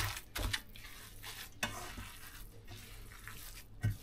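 Hands kneading a raw stuffing of ground meat, bulgur, onion and herbs in a bowl: irregular wet squishing strokes, with a sharper squelch near the start and another near the end.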